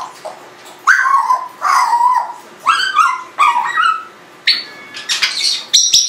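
Congo African grey parrot vocalizing: a run of short pitched calls starting about a second in, then shriller, higher whistles near the end.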